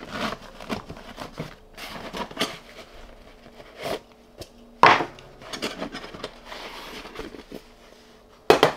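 Handling noise from a camping cook kit: a fabric pouch rustling while a stainless steel pot and a gas canister knock and clink against each other and the bench. Two sharp knocks stand out, about five seconds in and near the end.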